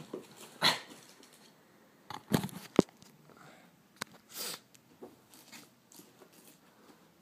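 Handling noise from a pair of leather high-top sneakers being picked up and turned over close to the microphone: scattered rustles and knocks, the loudest a sharp knock near the middle.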